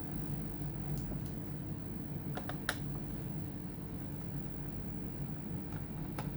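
A few sharp, scattered clicks and taps from working on a laptop by hand, with a small cluster about two and a half seconds in, over a steady low hum.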